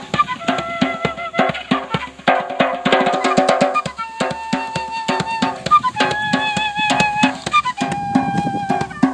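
A side-blown flute playing a melody of held, slightly wavering notes over a steady djembe hand-drum rhythm.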